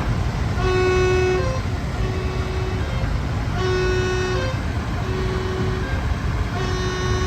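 A steady vehicle engine rumble, with a repeating horn-like pitched tone that sounds for just under a second about every one and a half seconds.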